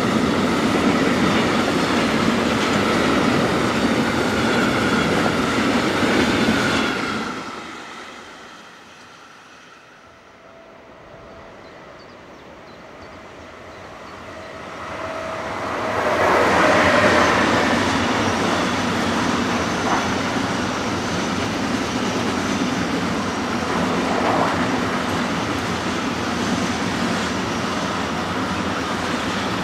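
A long freight train of tank wagons rolling past at speed, with a steady high wheel squeal over the rumble, fading out about a quarter of the way in. After a quieter stretch, a Siemens Vectron electric locomotive approaches with a faint steady tone and passes, followed by pocket wagons carrying lorry trailers, their wheels rolling loudly with occasional clacks over rail joints.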